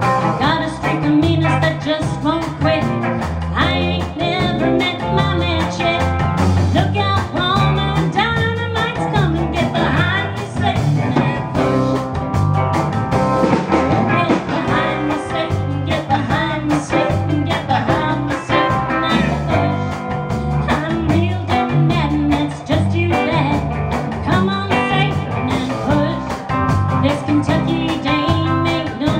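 Live band playing a song: electric and acoustic guitars over a drum kit, with a woman singing lead.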